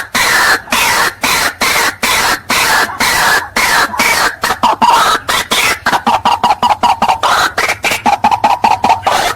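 White-breasted waterhen calling loudly in a long unbroken series of harsh, rhythmic 'kruak' notes. The calls come about two a second at first and quicken to four or five a second, dropping in pitch and then holding steady.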